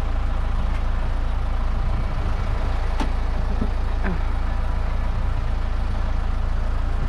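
Strong gusting wind buffeting the microphone as a steady, loud low rumble, with two faint clicks about halfway through.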